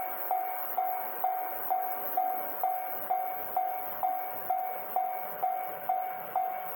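Railway level-crossing warning bell ringing: a single-pitched ding repeated evenly about twice a second, each strike fading quickly. It signals that a train is approaching the crossing.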